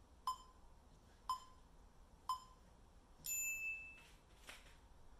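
Electronic interval-timer countdown: three short beeps a second apart, then a longer, higher beep that marks the start of the next timed set.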